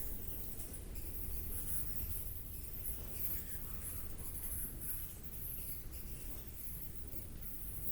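Nature ambience: high-pitched insect chirring that flutters and pulses irregularly, over a low steady rumble.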